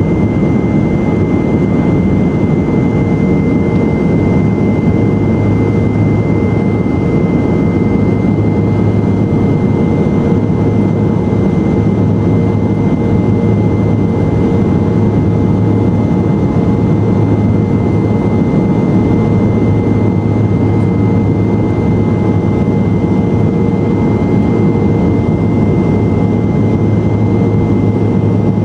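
Cabin noise inside a BAe Jetstream twin-turboprop airliner in flight: the steady drone of its Garrett TPE331 engines and propellers, with a constant high whine over it.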